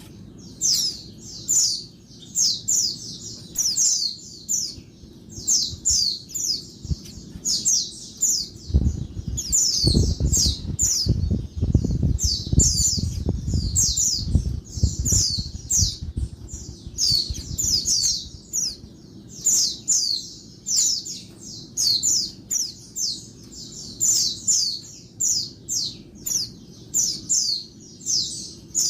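Female white-eye (pleci) calling noisily: a busy run of short, high, falling chirps, two or three a second in little clusters. A low rumble sits underneath for several seconds about a third of the way in.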